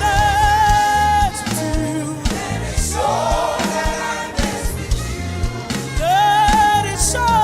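Gospel worship music: a singer holding long, wavering notes over a live band with drums and bass. A group of voices joins in about three seconds in.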